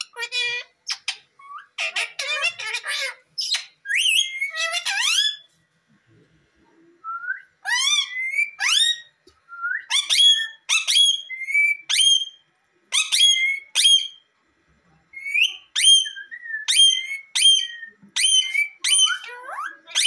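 Rose-ringed parakeets calling: rapid high chatter for the first few seconds, then after a short pause a run of short, sharply rising whistled calls, about two a second.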